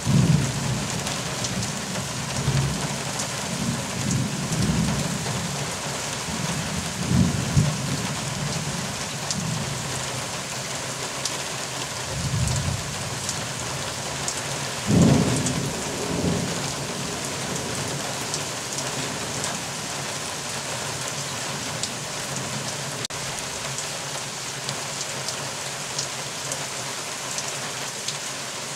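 Thunderstorm: steady rain hissing throughout, with rolls of thunder rumbling through the first half. The loudest peal comes about fifteen seconds in, with a smaller one right after, and the rest is rain alone.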